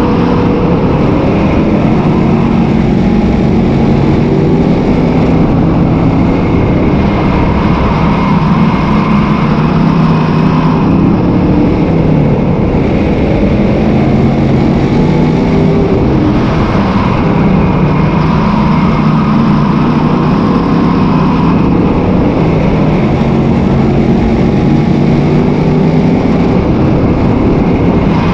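Sportsman modified dirt race car's V8 engine at racing speed, heard from inside the car: its pitch falls off and climbs back up every few seconds as the driver lifts and gets back on the throttle around the track.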